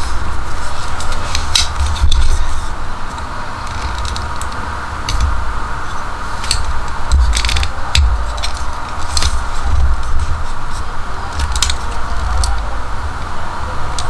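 Metal clicks and snaps of a Nextool Huohou multitool as its blade, saw and file are swung open and click into place, with handling rubs between them. About a dozen sharp, irregular clicks over a low rumble.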